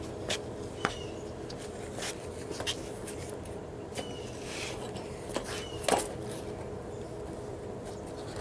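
Footsteps on a patio and a few light knocks and clicks as tools and lumber are handled, over a steady low hum; the loudest knock comes about six seconds in.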